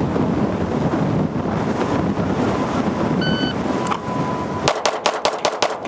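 Wind on the microphone, then a shot timer's beep about halfway through. About a second and a half later comes a fast string of six shots, a Bill Drill from the holster, from an Atlas Gunworks Erebus compensated 9mm pistol.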